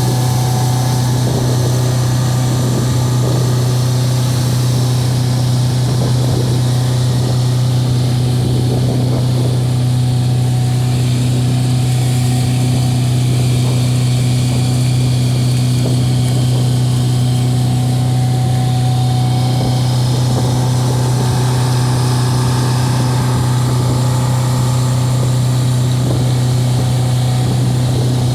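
Motor of a small fishing launch running at a steady cruising speed: an unchanging low hum that holds for the whole time.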